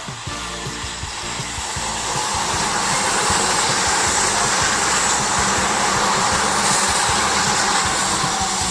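A Tobu 100 series Spacia electric limited express train passing, a rushing noise that builds over about two seconds, holds, and eases off near the end, with background music underneath.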